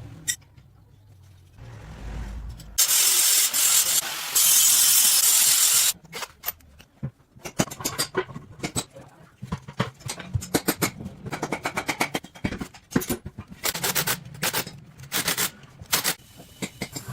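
Hand work on metal dynamo parts: a loud, steady rasping hiss for about three seconds, then a run of irregular scraping strokes and clicks.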